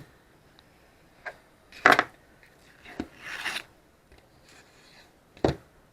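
Knife cutting a piece off a block of butter: a sharp knock about two seconds in, a short scraping rub a second later, and a heavier knock near the end.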